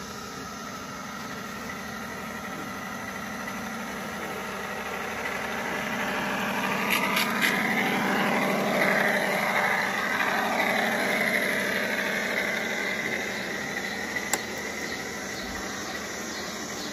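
G-scale model train running past on garden track: Santa Fe F-unit diesel locomotives pulling passenger cars. Its running sound grows louder to a peak about halfway through, then fades, with a few sharp clicks.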